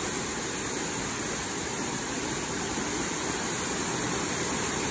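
Waterfall falling steadily into its plunge pool: an even, unbroken rush of water.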